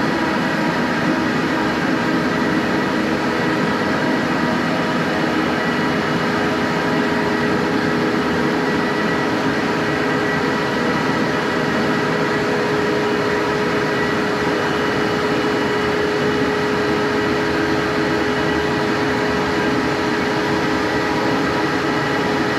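A floor-refinishing machine's motor running steadily: a constant loud hum with a held whine over a noisy rush, cutting off suddenly at the end.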